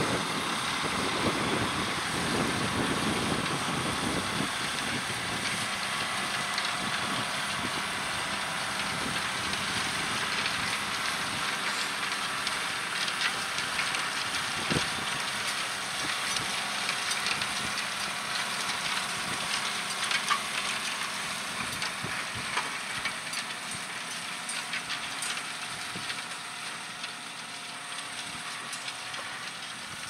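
John Deere 6R 215 tractor's six-cylinder diesel engine running under load as it pulls a five-furrow plough through the soil, with scattered clicks and rattles. The sound fades over the last several seconds as the tractor moves away.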